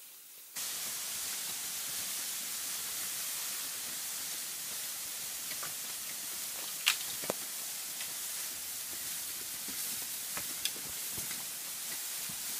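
Steady rustling hiss of a heap of leafy bamboo canes being dragged over the leaf-littered ground, starting abruptly just after the beginning, with a few sharp clicks, the loudest about seven seconds in.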